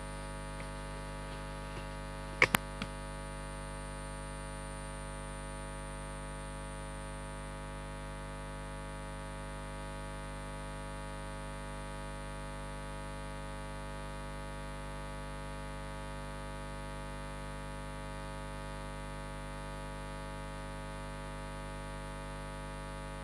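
Steady electrical mains hum with many overtones on an open microphone or sound-system line, with a brief double click about two and a half seconds in.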